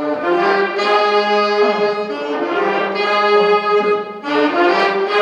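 High school jazz band horns playing a short, repeated riff of held notes, coming back about every two seconds; the riff imitates the first noise made by a broken air conditioner.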